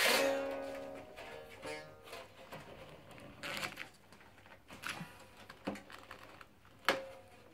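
Koto strings twanging and ringing as they are tugged and handled during restringing at the tail end. One loud twang at the start rings on for about a second, followed by scattered clicks and taps from handling the strings and a short ring near the end.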